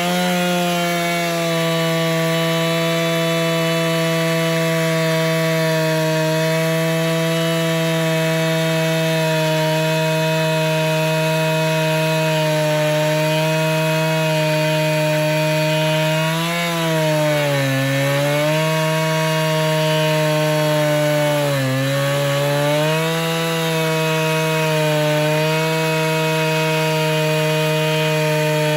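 Husqvarna 395XP two-stroke chainsaw running at full throttle in a Granberg Alaskan mill, its chain ripping lengthwise through a log. The engine pitch holds steady, then dips under load and recovers about two-thirds of the way through, and again shortly after.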